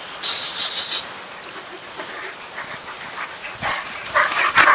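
Irish Wolfhounds at rough play: after a short hiss just after the start, a hound gives loud, sharp yelping barks near the end.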